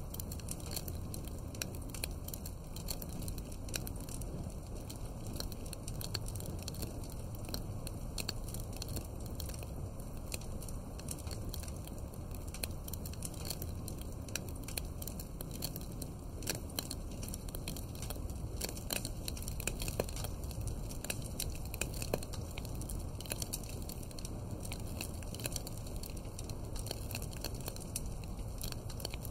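Wood fire crackling: a steady run of small irregular pops and snaps over a low, even rumble, with a few louder snaps about twenty seconds in.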